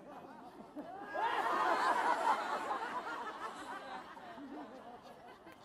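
A burst of quick, high, overlapping chattering voices, loudest from about one to four seconds in, then fading.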